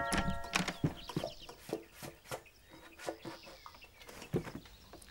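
Footsteps on a wooden floor, about two or three a second and growing fainter, then a sharper click about four seconds in as a door latch is worked and the door opened.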